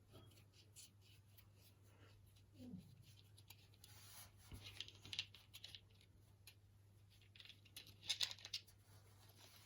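Faint rustling and small clicks of hands working a Brodie helmet liner and its fittings, with a few sharper ticks about halfway through and again near the end.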